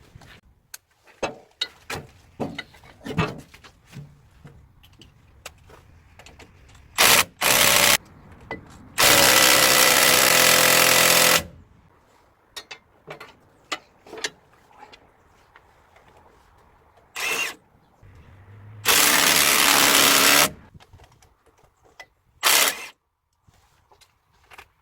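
A power tool run in several bursts, the longest about two and a half seconds, with light metallic clicks and knocks of hand tools in between.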